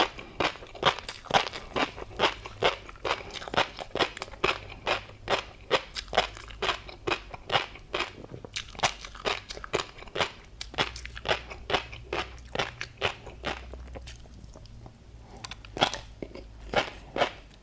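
Close-miked chewing of tobiko (flying fish roe) with a crunchy seafood topping: a quick run of crisp crunches and pops, about three a second, with a short pause about fourteen seconds in.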